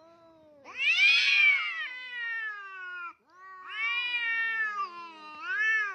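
Domestic cat giving three long, drawn-out meows: the first rises and then falls in pitch, the second slides downward, and a short third call comes near the end.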